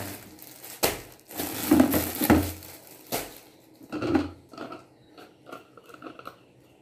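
Plastic packaging rustling and hard plastic knocking as wrapped mop refills are pulled out of a plastic spin-mop bucket. It is loudest in a rustling stretch about two seconds in, between two sharp knocks, then dies down to a few light clicks and rustles.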